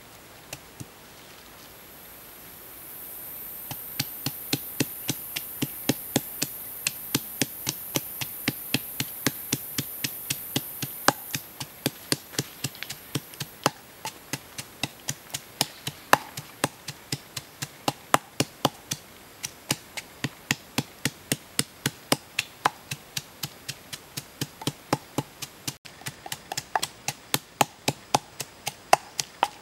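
Wooden pestle pounding in a wooden mortar: steady, even knocks about three a second. A high steady hiss sits under the first part of the pounding and stops partway through.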